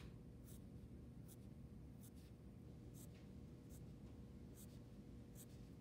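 Faint scratching of a wooden pencil on paper: short, quick strokes, roughly two a second, each one an eyelash flicked up and out from the eyelid.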